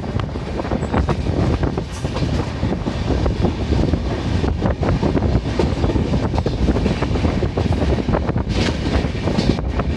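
Train running at speed, heard from on board the Humsafar Express: a steady rumble of the coach with a continuous, irregular clatter of wheels on the track.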